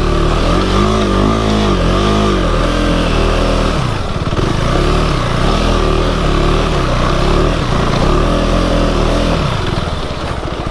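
KTM 390 Adventure's single-cylinder engine running under changing throttle, the revs rising and falling again and again, then settling lower near the end.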